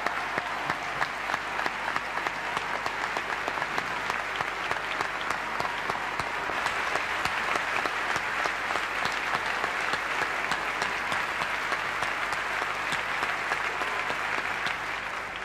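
A large audience applauding steadily, the clapping dying down near the end.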